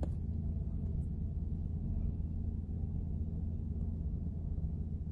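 Steady low background hum with no distinct events: room tone.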